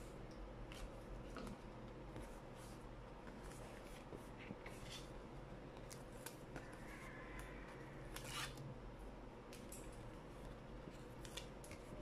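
Faint paper rustling and crackling as sheets of printed card are handled and double-sided tape is pressed onto the back of a print, with irregular crisp taps and a stronger rustle about eight seconds in. A low steady hum runs underneath.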